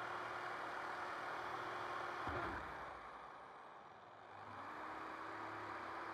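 Drill press motor running with a steady hum while its bit bores into a wooden board. A little over two seconds in, a knock cuts the tone off and the sound dies down. About four and a half seconds in, the motor spins back up with a rising whine.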